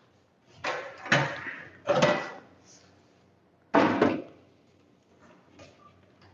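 Handling noises: clunks and rustles as a plastic bucket of ramen flour mix is carried to a noodle machine's mixer. There is a sudden knock about four seconds in, and it goes quiet after that.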